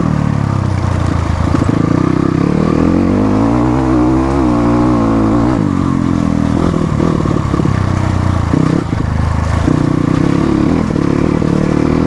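Motorcycle engine running while being ridden off-road, the revs rising and then falling about four to five seconds in, then choppier throttle changes.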